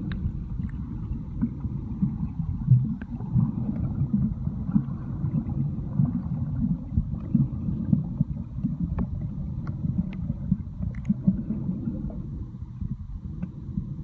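Muffled underwater water noise picked up by an iPhone held under the surface: a low, uneven rumble with scattered faint clicks.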